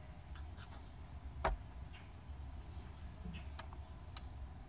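A few faint, sharp clicks, the loudest about a second and a half in, from a hand working the trunk-lid trim and micro switch of a Mercedes SL.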